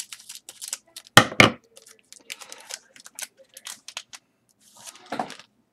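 Trading-card pack being handled and opened: the wrapper crinkles and tears and the cards click and slide. There is a louder crackle about a second in.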